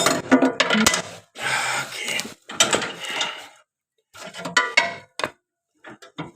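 Repeated metal clinks and scrapes in short, irregular bursts: a large screwdriver levering parts into place on a Husqvarna mower's steel cutting deck.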